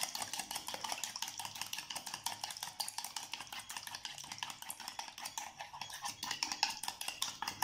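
Eggs and sugar being beaten by hand with a metal spoon in a bowl: fast, even clicking of the spoon against the bowl.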